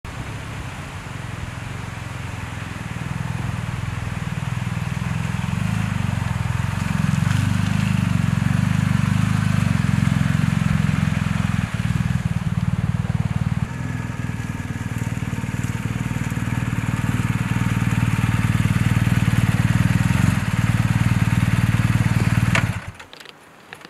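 Adventure motorcycle engine running steadily, growing louder over the first several seconds, then cut off suddenly near the end.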